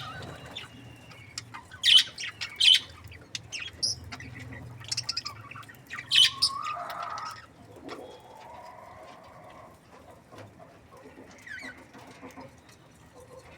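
Budgies chirping and chattering: a few sharp, loud chirps, a run of quick clicks, and a longer warbling call in the middle, then softer chatter.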